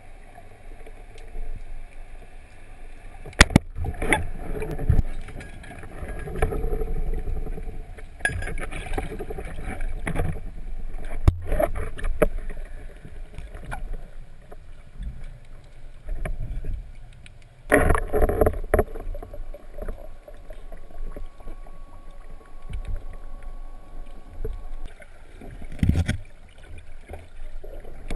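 Water sloshing and splashing in shallow water, with a few sharp knocks and louder splashes along the way.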